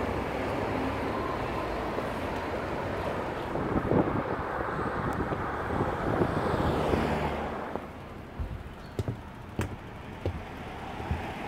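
Wind buffeting the microphone of a camera carried on a moving bicycle, with road traffic going by. About eight seconds in the rushing drops away and a few sharp clicks and knocks remain.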